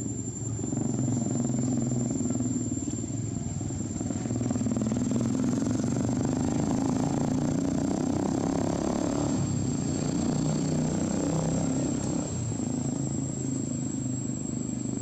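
A motor engine running steadily, its low hum wavering a little, with a constant thin high-pitched tone above it.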